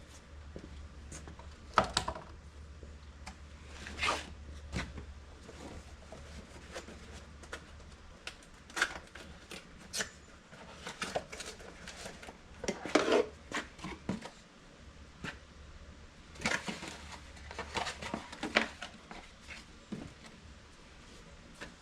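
Hands working on parts: irregular clicks, knocks and light clatter, some in quick clusters, over a faint low hum.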